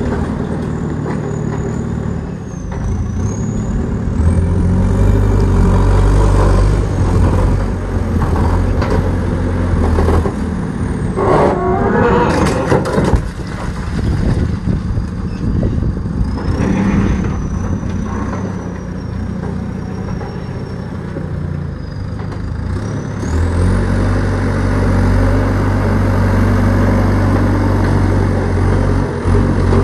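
Heavy diesel engine of a construction machine running, getting louder twice, with a brief rattling clatter about midway.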